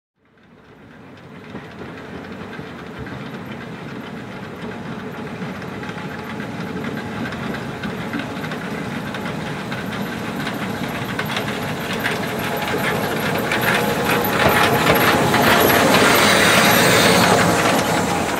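Narrow-gauge Mallet 0-4-4-0T steam locomotive 99 5901 running into a station with its coaches, with hissing and a run of short knocks. It grows steadily louder as it comes closer and is loudest about fifteen to seventeen seconds in.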